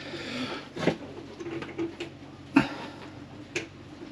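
Hand tool clicking and knocking against boat plumbing fittings, three sharp knocks with the loudest about two and a half seconds in, with brief scraping rustles between them.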